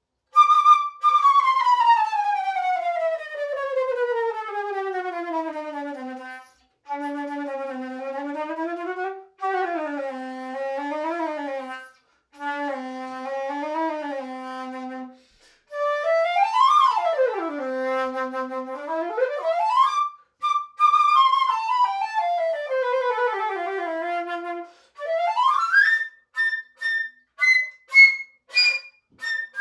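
Solo concert flute playing test phrases: a long descending run from the middle register down to the lowest notes, short phrases around the bottom of the range, a quick run up and back down, then short detached high notes near the end.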